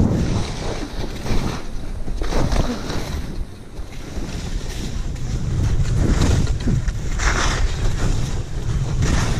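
Wind buffeting a GoPro Hero 8's microphone during a fast downhill ski run, a heavy low rumble, with skis hissing and scraping over chopped snow in surges. The sound drops for a moment about three and a half seconds in, then builds again.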